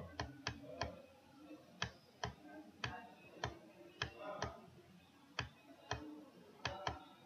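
Faint, irregular clicks, about two a second: the button of a computer mouse pressed and released as strokes are drawn on an on-screen whiteboard.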